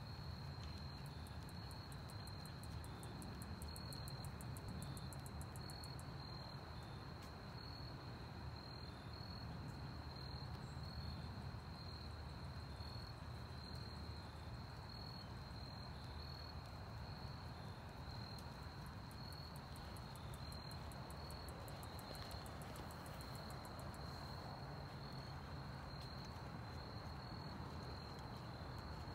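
Faint, steady insect chorus: one continuous high trill with a slight pulse, over low background noise.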